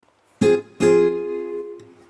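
Music of plucked strings: a short strummed chord, then a second chord that rings on for most of a second.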